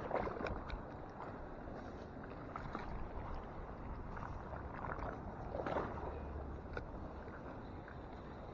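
Sea waves washing in against the shore, a steady rush of water that swells at the start and again about five to six seconds in.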